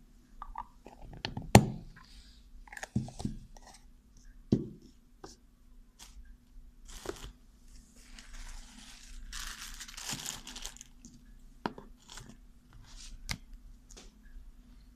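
Close handling noises: scattered knocks and clicks, the loudest about a second and a half in, with a few seconds of crinkling and rustling near the middle.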